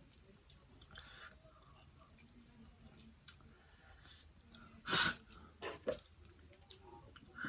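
A person chewing spicy noodles close to the microphone, with soft wet mouth clicks and smacks. About five seconds in comes one loud, short, hissy sound, followed by two smaller ones.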